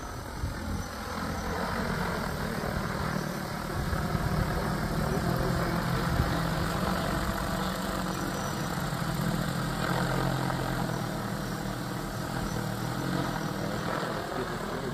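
BROUAV U60 agricultural quadcopter spray drone in flight, its four large propellers giving a steady deep hum that grows louder over the first few seconds as it comes closer, then eases a little near the end.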